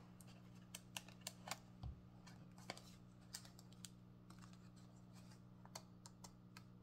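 Faint, irregular light clicks and taps of small objects being handled, several a second at times, over a steady low hum.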